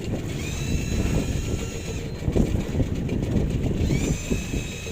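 Wind buffeting the microphone in a steady rumble, with a high steady whine heard twice, each lasting about a second and a half.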